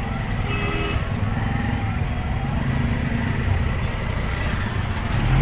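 Auto-rickshaw's small engine running steadily under way, heard from inside the open cabin along with road noise.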